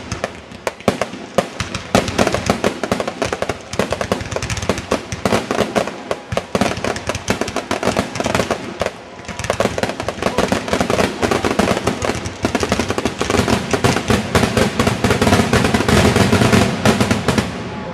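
Fireworks finale barrage: aerial shells firing and bursting in rapid, overlapping succession. The bangs thicken and grow louder about halfway through, then stop just before the end.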